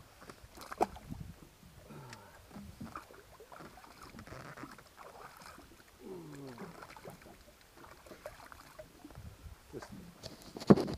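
Sea water sloshing and splashing at the side of a small inflatable boat as a hand is dipped and rinsed in it, with a few knocks on the boat, the loudest near the end.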